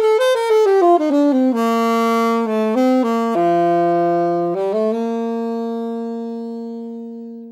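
Alto saxophone played solo: a quick run of notes that settles into a few longer held notes and ends on one long note that fades out.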